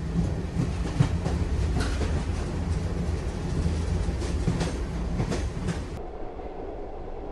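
Train running, a heavy rumble with irregular clacks from the wheels and carriage, used as a Foley sound effect. About six seconds in it cuts to a quieter, duller sound.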